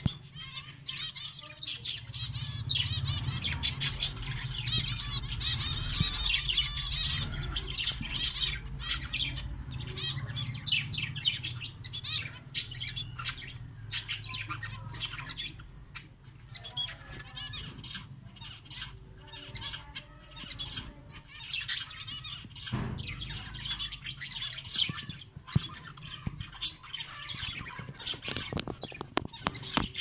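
A flock of small cage finches and a budgerigar chirping and twittering continuously, with short wing flutters among the calls.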